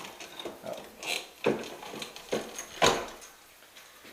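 A few short clicks and knocks, about four in all, two of them louder, from wires and tools being handled at an electrical outlet box.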